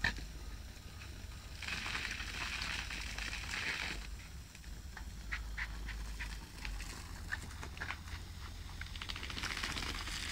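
Water from a garden hose hissing and spattering on a lawn, in two spells: from about two seconds in to four, and again near the end. Light crackles and clicks are scattered throughout over a low steady rumble.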